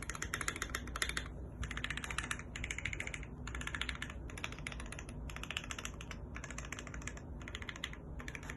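Typing on a Keychron Q1 mechanical keyboard with lubed and filmed Gateron Phantom Red linear switches and a tape mod: rapid key clicks in short runs like words, with brief pauses between them.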